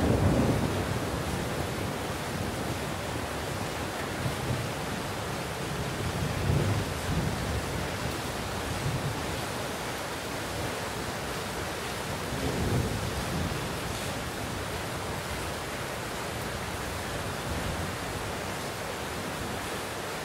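Steady heavy rain with distant rolling thunder: the loudest roll at the start, fainter rumbles about a third of the way in, and another a little past the middle.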